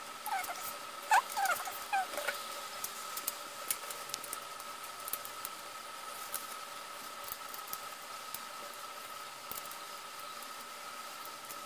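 Small plastic LEGO bricks being handled and snapped together, with scattered sharp clicks. A few short squeaks come in the first two seconds, and a steady thin high whine sits underneath throughout.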